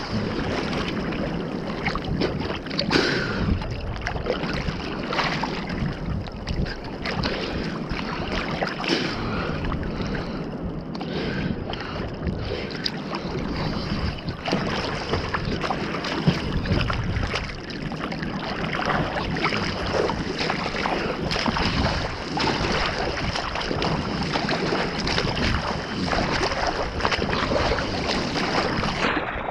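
Choppy seawater sloshing and splashing around a camera bobbing at the surface, in a steady run of irregular slaps with some wind on the microphone.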